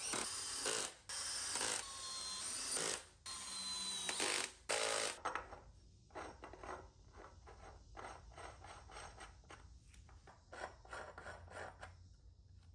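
Cordless DeWalt drill running in several short bursts, driving 1/4-inch by 1-inch lag screws through a galvanized iron pipe floor flange into a wooden 2x6. From about five seconds in, a run of short scraping grinds as threaded galvanized iron pipe is turned by hand into the flange, metal threads rubbing on metal.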